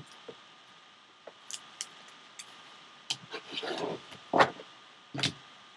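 Trading cards in clear plastic holders being handled and set down on a tabletop: scattered light clicks and taps with a brief rub, and a few louder plastic knocks between about three and a half and five seconds in.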